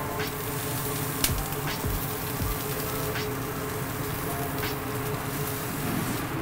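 Tomahawk steak searing on a charcoal barbecue grate: a steady sizzle as beef fat drips onto the hot coals and flares, with a few sharp crackling pops. A steady hum sounds underneath.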